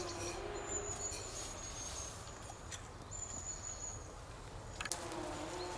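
Small wood fire crackling in a perforated metal camping stove, with a few sharp clicks, the loudest a little before the end. A faint high whistle comes and goes, and a lower wavering hum returns near the end.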